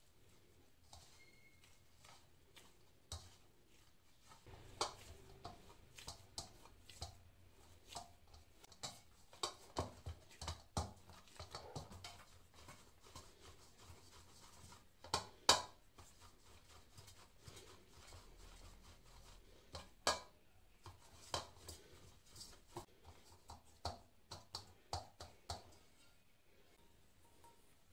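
Hands mixing and kneading wheat-flour dough in a bowl: irregular soft knocks, taps and scrapes of hands and dough against the bowl, with a few louder knocks.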